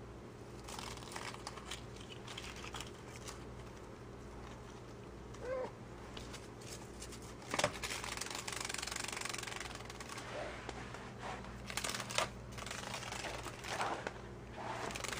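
Light scratching, clicking and rustling as a cat paws at a fluttering dragonfly on a tile floor, faint at first and busier from about halfway, with a couple of sharper clicks and a short rising squeak about five seconds in.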